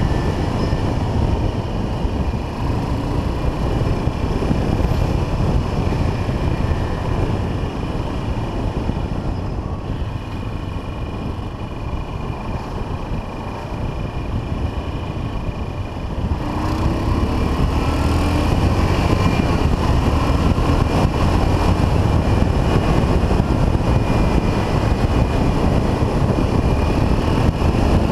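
1979 Yamaha XT500's single-cylinder four-stroke engine running on the move. It eases off for a few seconds in the middle, then picks up again with a rising note about two-thirds of the way through as the bike accelerates.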